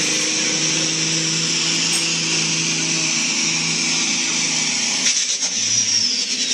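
Semi truck's diesel engine running hard under heavy load as it drags a pulling sled, a loud steady drone with a strong hiss. About five seconds in, the engine note drops away and a high whine falls steadily in pitch as the truck lets off at the end of its pull.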